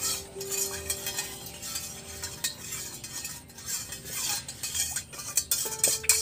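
A spoon stirring sugar into water in a glass, scraping and clinking against the sides as the large sugar grains dissolve.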